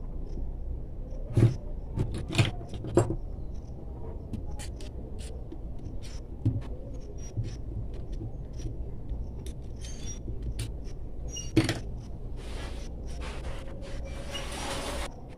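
Small metal parts clicking and clinking as screws and fittings are worked onto a sewing machine motor's end plate by hand, with a cluster of sharp clicks early on and one more later. Near the end, a longer rattling, clattering stretch of metal hand tools being handled, over a steady low hum.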